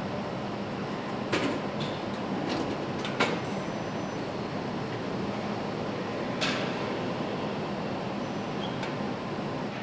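Steady machinery noise of a motorcycle assembly hall, with a low hum and a few sharp metallic clicks and knocks.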